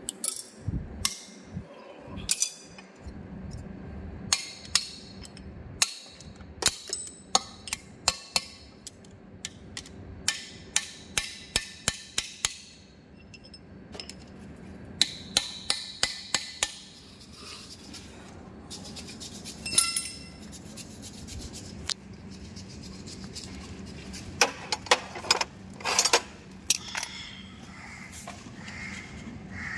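Hammer blows on a steel drift, tapping a ball bearing into its seat in a BEML BD155 bulldozer transmission housing: sharp metallic clinks that ring briefly, in several quick runs with pauses between.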